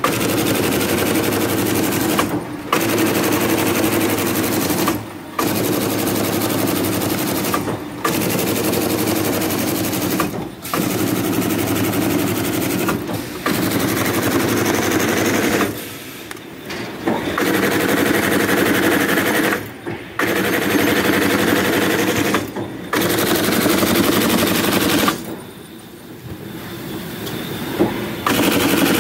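Miruna G800 semi-automatic box stitching machine driving wire staples into corrugated cardboard box seams at about 700 staples a minute: a fast, even clatter of strikes over the hum of the machine's drive. It comes in runs of two to three seconds with short breaks between them, and a longer lull near the end.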